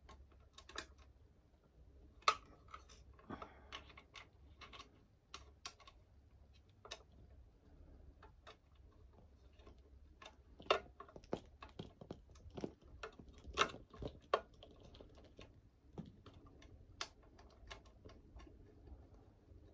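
Scattered small clicks and taps at an irregular spacing as battery-cable ring terminals are fitted onto a power inverter's terminal posts and the screw caps are turned down by hand. The sharpest clicks come a little after two seconds in and between about ten and fourteen seconds.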